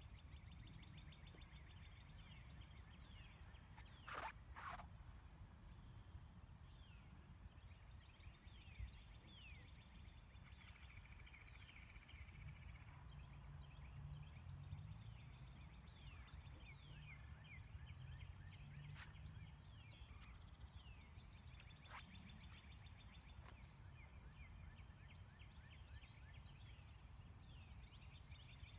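Faint birdsong from several birds: scattered short falling chirps and rapid trills, with two brief louder calls about four seconds in, over a steady low rumble.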